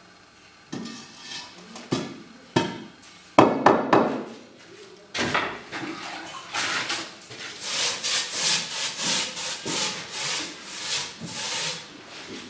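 Block-laying work: a few sharp knocks of blocks being set down in the first few seconds, then a long run of quick scraping and rubbing strokes of blocks and a trowel on mortar.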